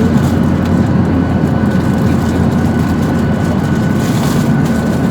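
Airliner cabin noise: the steady, loud drone of the jet engines and airflow heard from inside the passenger cabin, mostly low-pitched, with a faint steady whine above it.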